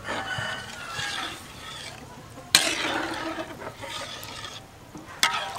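A metal spatula stirring chili powder into simmering broth in a steel wok, the liquid sloshing, with two sudden louder sounds, the loudest about halfway through and another near the end. Chickens clucking in the background.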